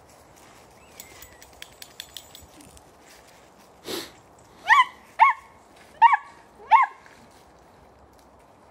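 Small dog barking four times in quick succession, with short, high-pitched yaps about half a second apart in the second half.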